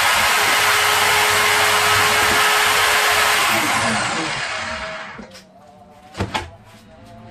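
Circular saw mounted under a homemade saw table running free with a steady whine, then switched off about halfway through and winding down, its pitch falling as it fades. A couple of sharp wooden knocks near the end.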